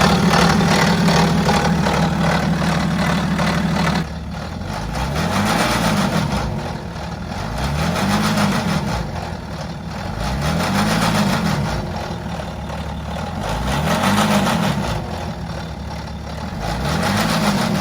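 BMW X5 F15's N57 diesel engine running steadily, then, after an abrupt change about four seconds in, revved gently up and down about every three seconds. The engine is suspected of a worn, stretched timing chain, whose metallic rattle is what is listened for.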